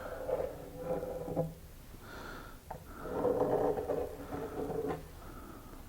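Plywood cabinet parts being handled and slid into place: scraping and rubbing of wood on wood, with a couple of light knocks.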